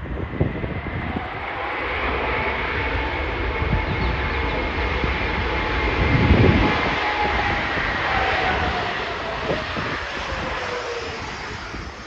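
Korean Air jet airliner's engines rolling along the runway: a steady jet roar with a whine that slowly falls in pitch, loudest about six seconds in as the aircraft nears. Wind buffets the microphone throughout.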